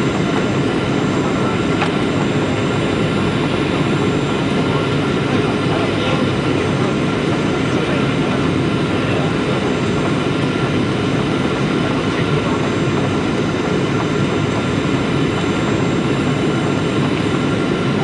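Steady cabin noise of a jet airliner on its landing approach: engine and airflow noise heard from inside the cabin, a dense even rumble with a faint steady whine above it.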